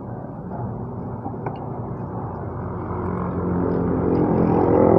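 A motor running with a steady low hum that grows gradually louder.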